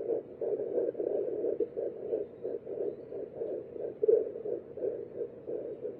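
A fetal doppler's speaker playing a fetal heartbeat at 8 weeks 6 days of pregnancy: a fast, pulsing sound over a hiss, many beats a second.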